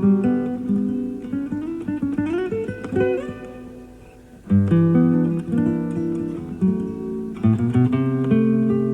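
Solo classical guitar played live, heard from an FM radio broadcast recorded on cassette tape. Plucked notes and chords, with notes sliding upward about two seconds in, a brief softer passage, then full chords again from about four and a half seconds in.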